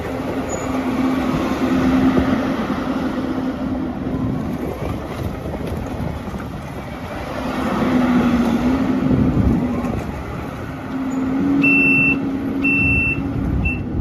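Kubota SVL75-2 skid steer loader's 74 hp Kubota diesel engine running with a steady low hum, swelling louder and easing off three times as it works. Two short high beeps sound about a second apart near the end.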